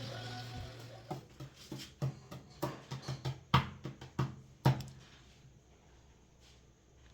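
A series of about a dozen irregular light knocks and taps in a small room, the loudest two a little past the middle, after a steady low hum fades out in the first second.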